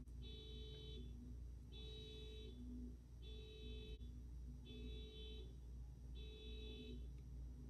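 Faint repeating electronic tone pattern: five short buzzy tone clusters about a second and a half apart, with lower tones alternating beneath them, over a steady low hum.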